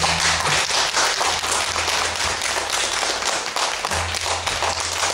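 Audience applauding at the end of a song.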